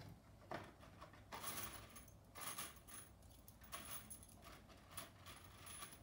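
Small metal screws rattling and clinking in a box as they are picked out by hand, in several short bursts.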